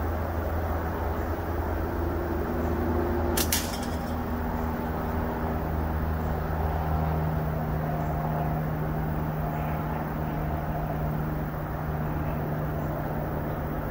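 Slingshot shot: SniperSling .5 bands on a Prime Fork Hooligan slingshot released with one sharp snap about three and a half seconds in. A steady low drone runs underneath.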